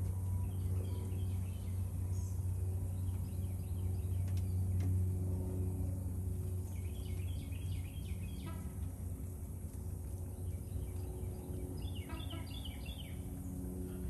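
Small songbirds chirping in short clusters of quick high notes, three times: about a second in, about halfway through, and near the end. Under them runs a steady low mechanical hum.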